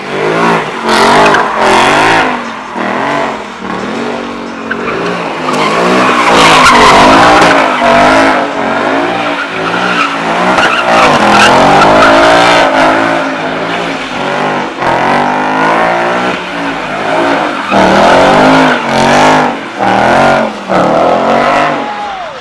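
A car engine revving hard, its pitch rising and falling again and again, while the tires squeal in a sustained skid. This is the sound of a burnout or donut.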